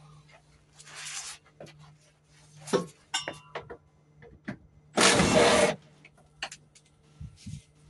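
Tools at work on the fuel-tank strap bolts: scattered clicks and metallic knocks, then one loud burst of noise lasting under a second about five seconds in.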